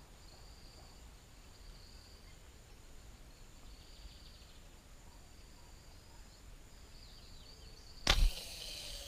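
A slingshot firing a fishing arrow: one sharp snap of the released bands about eight seconds in, followed by about a second of hissing as the arrow flies off. Before the shot it is quiet.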